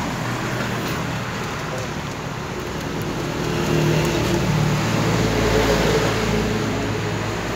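A motor vehicle passing close by over steady road-traffic background: its engine noise builds about three seconds in, is loudest with a low rumble around the fifth and sixth seconds, then fades.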